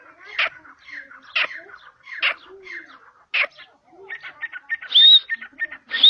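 Grey francolin calling: loud, sharp call notes about once a second. Near the end they give way to a faster run of short notes and two brief high whistles.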